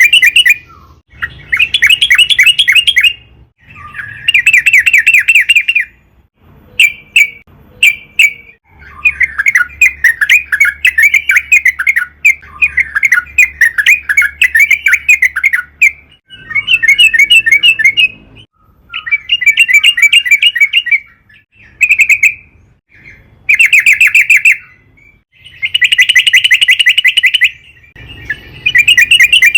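Yellow-vented bulbul (trucukan) singing loudly in rapid, bubbly chattering phrases, each one to three seconds long, repeated with short pauses between them.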